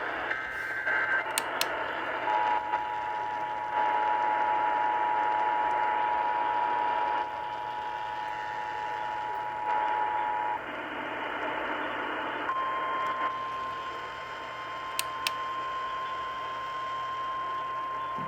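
Weather radio static hiss carrying steady alert tones. A two-tone pair, the EAS attention signal, sounds for about eight seconds. Then a single slightly higher tone, the NOAA Weather Radio warning alarm tone, starts about twelve seconds in and holds.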